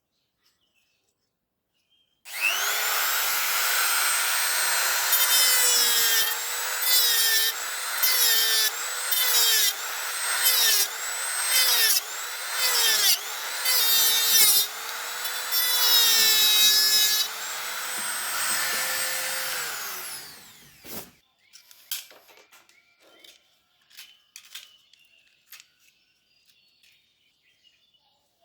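A small high-speed power tool starts about two seconds in, its motor whine dipping in pitch about once a second as it bites into material under load. It runs free briefly, then winds down about twenty seconds in, followed by light handling clicks.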